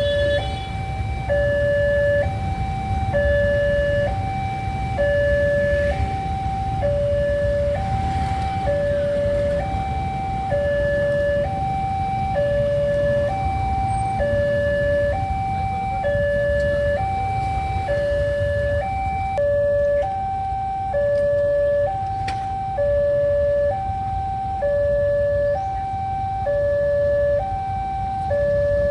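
Railway level-crossing warning siren sounding a steady two-tone alarm, a high and a low note alternating about once a second, over a low rumble.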